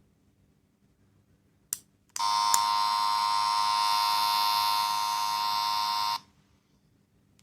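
A click, then a capsule-toy sound gadget's tiny speaker gives a steady electronic buzzer tone for about four seconds, which cuts off abruptly.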